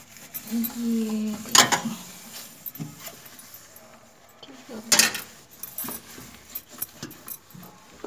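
A damp cloth scuffing and rubbing over the inside walls and floor of a microwave oven cavity, with small clicks and knocks. Two louder strokes come about a second and a half in and about five seconds in.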